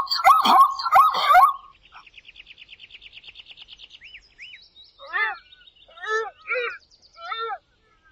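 A zebra calling in a quick series of barking yelps, followed by a rapid high trill from a bird and then several more short barking calls spaced under a second apart.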